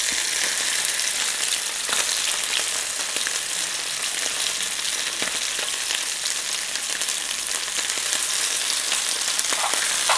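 Small anchovies shallow-frying in coconut oil on a low flame, a steady sizzle, with a few light taps and scrapes of a slotted spatula turning the fish in the non-stick pan.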